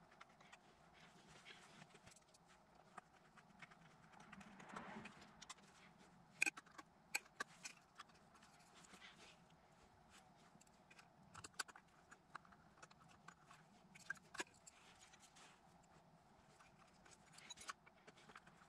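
Mostly near silence with scattered faint clicks and taps from hands and a screwdriver working on a speaker's amplifier plate and heatsink, and a soft rustle about five seconds in.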